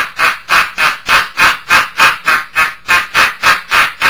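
A man's put-on, disguised laugh in place of a Santa 'ho, ho, ho': a long, even string of short, sharp laugh syllables, about three or four a second.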